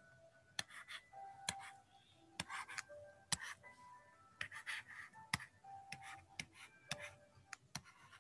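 Stylus writing letters by hand: about ten light taps and short scratching strokes, some with brief squeaks.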